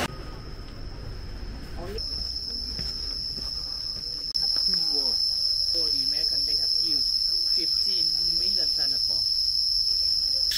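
Steady, high-pitched insect drone that starts about two seconds in and gets louder about four seconds in. Faint voices can be heard beneath it.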